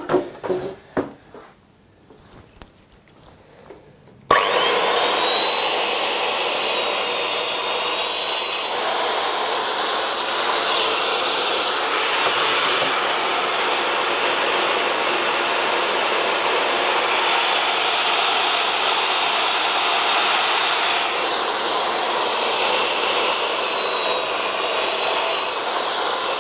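A few light knocks of timber being handled, then about four seconds in a circular saw mounted in a Triton Workcentre switches on abruptly and runs with a steady high whine while crosscutting short pieces of board to length.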